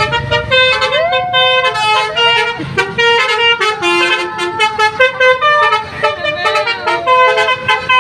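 A bus's 'telolet' musical air horn playing a quick tune of short, loud notes that jump between several pitches, over and over.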